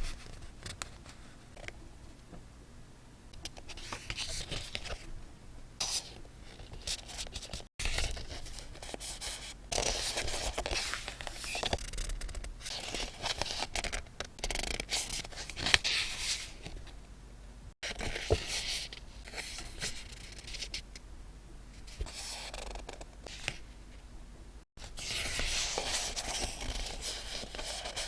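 Paper and stationery handled by hand, rustling and scraping in irregular bursts with small clicks, as in scrapbook decorating.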